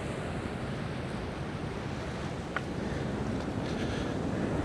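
Ocean surf washing steadily against the rocky shore, with wind on the microphone.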